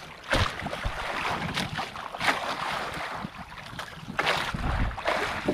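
Wind on the microphone and water lapping against a small boat's hull, with a few short knocks or splashes.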